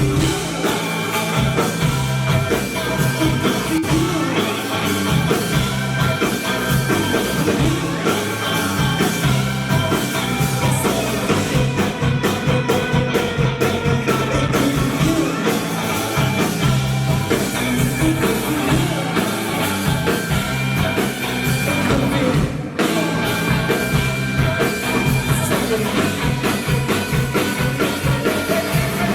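Rock band playing live: drum kit, electric guitars and bass, with a brief break in the music about three-quarters of the way through.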